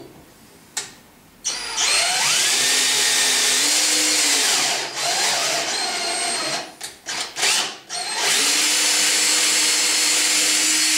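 Cordless battery drill driving a tap to cut M5 threads into the end of an aluminium V-slot extrusion. The motor whines up about a second and a half in, runs in long steady spells, and is stopped and started in several short trigger bursts in the middle.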